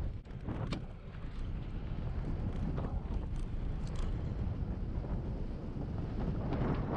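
Wind buffeting the microphone of a bike-mounted camera on a fast road descent, over a low steady rumble of the ride, with a few short clicks. The level dips briefly just after the start, then holds steady.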